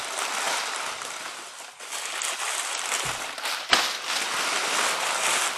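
Crumpled brown kraft packing paper rustling and crinkling as hands dig through it in a cardboard shipping box, with one sharp snap a little past halfway.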